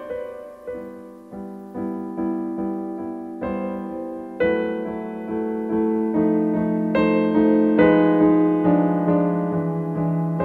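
Solo piano playing a slow, gentle melody, single notes struck one after another and left to ring; the credits music.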